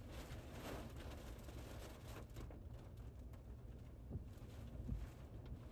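Tornado winds buffeting a truck, heard from inside the cab as a steady fluttering low rumble, with two dull thumps about four and five seconds in.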